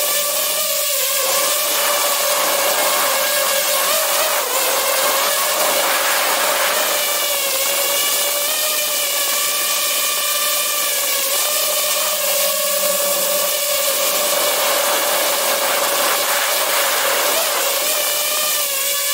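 DJI FPV drone's motors and propellers whining in flight, heard from a camera mounted on the drone: a steady buzzing hum whose pitch wavers slightly, over a rush of air. The air noise swells a few seconds in and again near the end.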